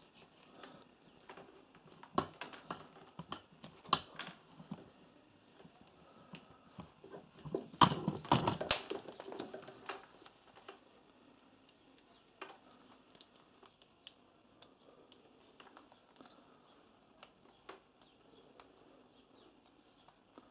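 Scattered clicks and knocks of things being handled and set down, with a louder rattle about eight seconds in, then only occasional faint ticks.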